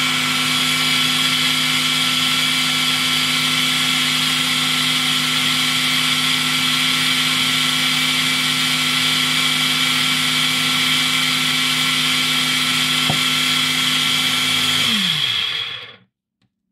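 Personal bullet-style blender running steadily while blending a fruit smoothie a little longer to smooth out the last bits. Near the end it is switched off and the motor winds down to a stop.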